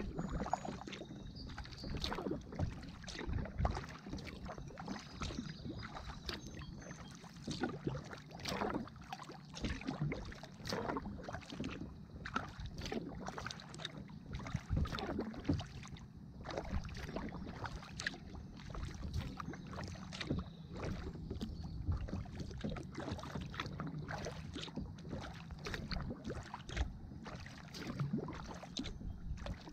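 Water splashing and lapping around a kayak, in irregular short splashes, over a steady low wind rumble on the microphone.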